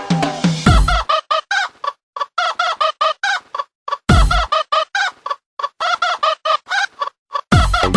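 Background music built on fast, evenly repeated short clucking-like notes, with heavy bass hits about a second in, around four seconds in and near the end.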